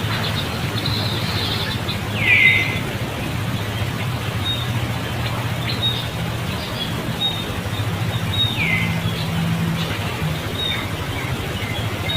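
High animal calls: two falling squeals about six seconds apart, the first the loudest, among scattered short high chirps, over a steady low hum.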